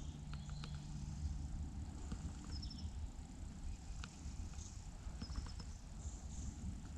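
Quiet riverside ambience: a steady low rumble with scattered faint clicks, and a small bird giving a short high call of a few quick notes about two and a half seconds in and again about five seconds in.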